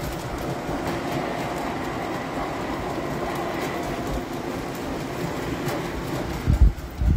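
Tinplate model train running along its track: a steady rumbling whir of motor and wheels with faint clicking over the rails. A few low thumps come near the end.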